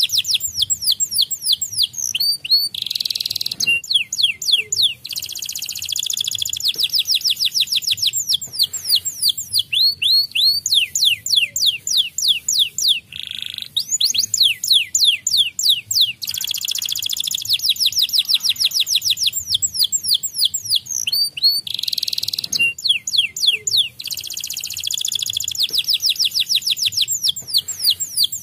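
White domestic canary singing: long rolling trills of rapid repeated notes, changing speed from run to run, broken by a few short harsh buzzy phrases about three, thirteen and twenty-two seconds in.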